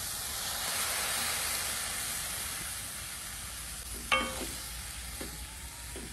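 Water poured into a hot steel kadai of frying soya chunks, sizzling up as it hits the hot oil and then dying down to a softer sizzle as it is stirred. A short sharp sound comes about four seconds in.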